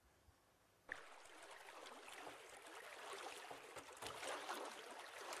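A fork beating a raw egg in a small bowl: quick wet sloshing with light taps of the fork against the bowl. It starts about a second in and grows louder.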